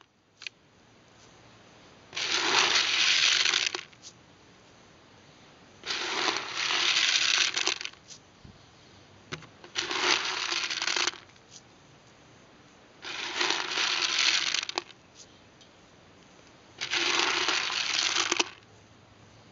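Dried corn kernels rattling in a bucket. The bucket is shaken in five bursts, each about a second and a half long and a few seconds apart.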